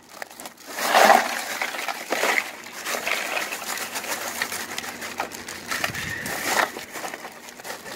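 Ice cubes poured from a plastic bag into a plastic cooler, clattering and rattling onto the vacuum-sealed packs, with the bag crinkling. The loudest rush of ice comes about a second in.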